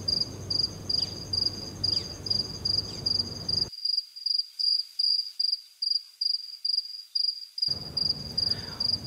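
Cricket chirping in a steady rhythm, about two high chirps a second. The low background rumble cuts out for about four seconds in the middle while the chirping carries on.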